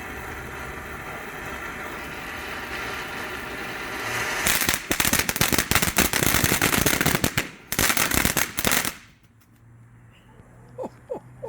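Small consumer fountain firework spraying with a steady hiss. About four and a half seconds in it breaks into loud, rapid crackling, which stops suddenly at about nine seconds as the fountain burns out.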